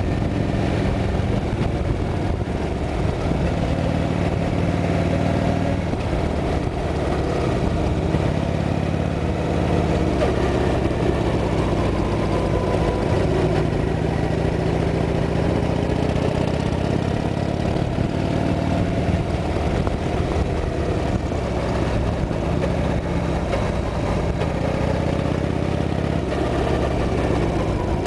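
Harley-Davidson Sportster's air-cooled V-twin engine running steadily under way, heard from on the bike, its pitch rising and falling gently with the throttle.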